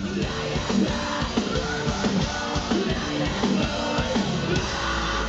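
Heavy rock band playing live, heard from within the crowd: distorted electric guitars over pounding drums. A deep sustained bass note comes in near the end.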